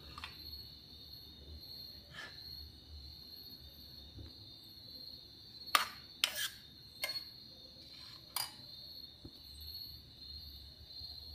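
A metal spoon clinks sharply against a steel pan several times in quick succession around the middle, over a steady high-pitched whine in the background.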